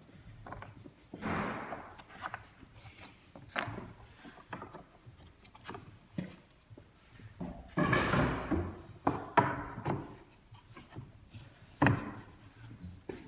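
Pine spindles and spacers being slid and pressed into the grooves of a wooden handrail and base rail: wood scraping on wood, loudest about eight seconds in, with scattered sharp wooden knocks as the pieces seat.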